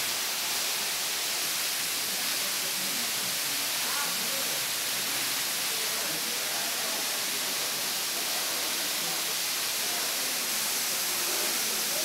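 Waterfall rushing: a steady, even hiss of falling water, with faint voices underneath.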